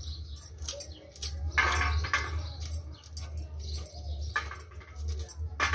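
Kernels being thumbed off a cooked corn cob with irregular scraping and crunching, loose kernels ticking as they drop onto a steel plate. A steady low hum runs underneath.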